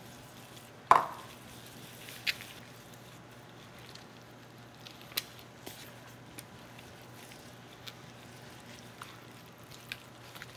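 Gloved hands rubbing an oily garlic and pepper seasoning over the skin of a raw whole chicken, with soft wet squishing. A sharp knock comes about a second in, followed by a few lighter clicks.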